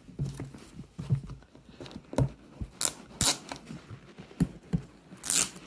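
Blue painter's tape being peeled and ripped off a cardboard mailer, with several short rips, the longest near the end, among the rustle and scrape of the package being handled.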